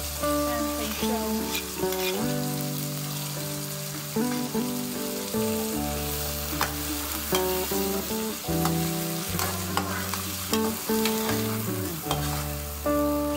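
Beef sizzling as it is stir-fried in a wok, with the spatula scraping and clacking against the pan several times. Soft background music of sustained notes plays under it.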